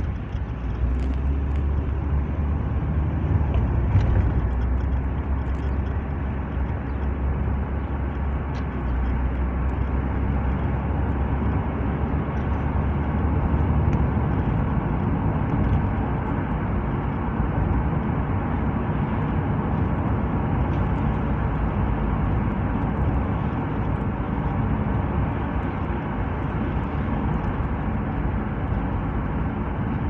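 A car driving along a town road, heard from inside the cabin: steady engine drone with tyre and road noise. A low hum is strongest through about the first half, after which a more even rumble takes over.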